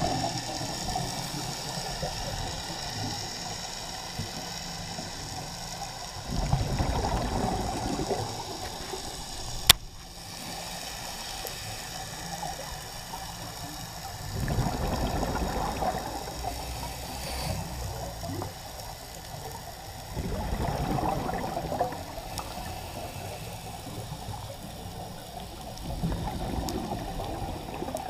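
Scuba regulator breathing heard underwater: four bursts of exhaled bubbles, each lasting a second or two, about six seconds apart, over a steady hiss. A single sharp click about ten seconds in.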